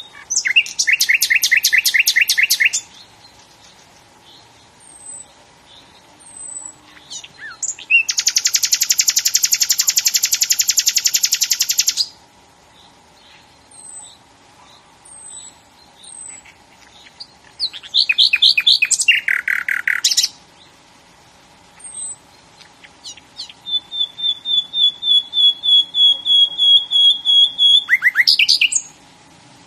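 A songbird singing in loud, long phrases of rapid trilled notes, four phrases with pauses between. The last phrase is a long even string of repeated notes. Faint short high chirps recur every couple of seconds between the phrases.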